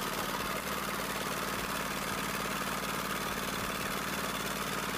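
Small engine running steadily with a fast, even beat, typical of an engine-driven pump drawing down a pond through a large pipe.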